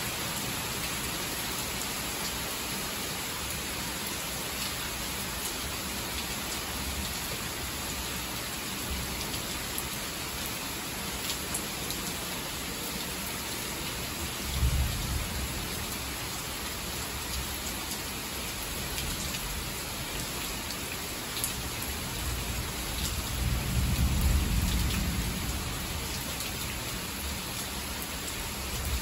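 Heavy rain falling steadily. A brief low rumble of thunder comes about halfway through, and a longer, louder roll of thunder follows near the end.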